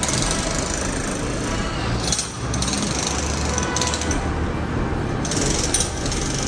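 Loud, continuous street noise with a low rumble and repeated bursts of hiss, without a clear single source.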